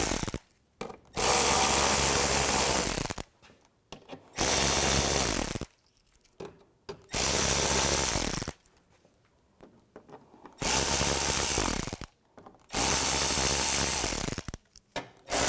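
Cordless power ratchet with an 8 mm socket spinning out underbody panel bolts, in short runs of about one and a half to two seconds with brief pauses between, about six times.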